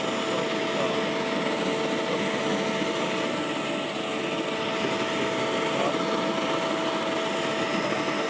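Ozito 36V cordless leaf vacuum blower running steadily: an even rush of air with a steady motor whine.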